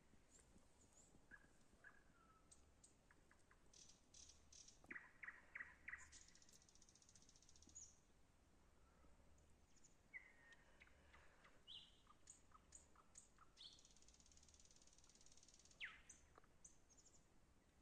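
Faint birdsong: small birds chirping with short high notes and quick downward-sliding calls, twice breaking into a long, high buzzy trill.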